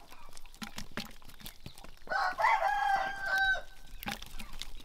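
A rooster crows once, about two seconds in, a call of about a second and a half that ends on a held note. Light clicks and taps from wet fish being handled in a net sound around it.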